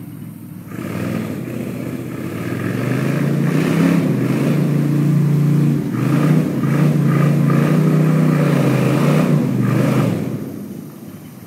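Surface-drive mud motor on a flat-bottom boat running as it pushes through thick marsh grass. It revs up a few seconds in, holds steady and loud, then throttles back and fades near the end.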